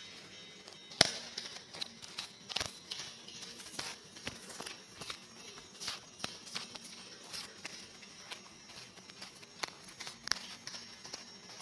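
Microphone feedback noise: irregular crackles and clicks, the loudest about a second in, over a faint steady high whine and low hum.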